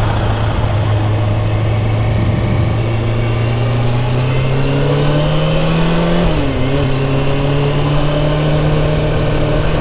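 Kawasaki Ninja 636 inline-four engine running at low revs as the motorcycle rides off, its pitch rising slowly, dipping briefly about six seconds in, then holding steady.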